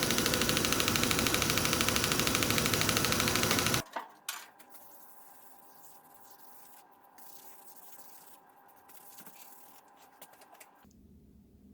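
Angle grinder running steadily on steel, cutting off suddenly about four seconds in, followed by quiet with a few faint clicks.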